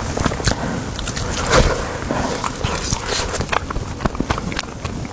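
Close-miked mouth sounds of someone eating: wet chewing with many small clicks and smacks, and one louder burst about a second and a half in.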